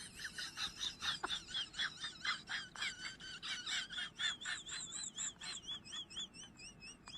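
High-pitched animal chirping: a rapid, even run of short chirps, about four a second, with a warbling whistle running under them through the second half.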